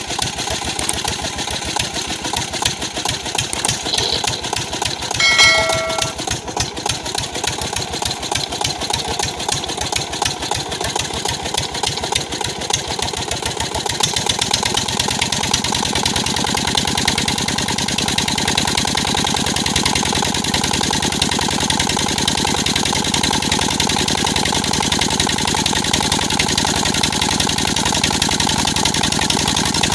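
Repaired Petter-type diesel engine running with a fast, even knock of firing strokes, freshly started after air-bleeding. About halfway through its note becomes louder and deeper and settles into a steadier run.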